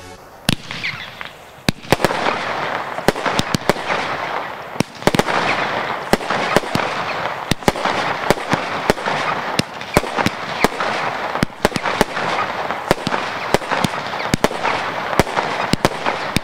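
Firestar 'The Embryo' 12-shot consumer fireworks cake firing: shots bursting into a continuous dense crackle, with many sharp cracks throughout. It begins about half a second in.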